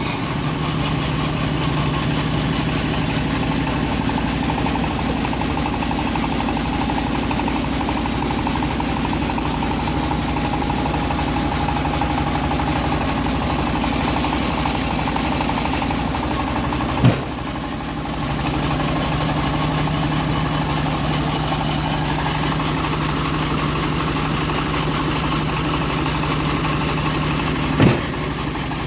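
The engine of a homemade bandsaw sawmill running steadily with a constant hum. A high hiss rises for about two seconds in the middle, and two sharp knocks come later, one about halfway through and one near the end.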